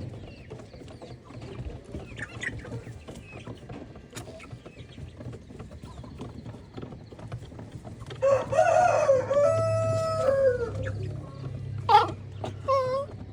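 A rooster crowing once, one long call of about three seconds, followed near the end by two short clucking calls; before the crow, faint chicken scratching and low clucks.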